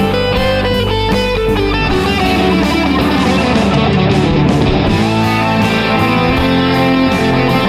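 Background music led by guitar, its notes busier in the middle.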